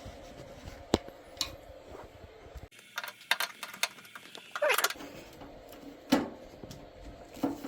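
Screws being driven into a front-load washer's panel: scattered clicks and knocks of the screwdriver and metal parts, with a short rising squeak about five seconds in.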